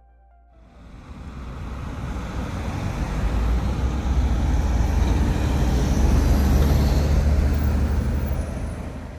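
A road vehicle passing close by: engine rumble and tyre noise swell up from about a second in, peak in the middle and fade away near the end.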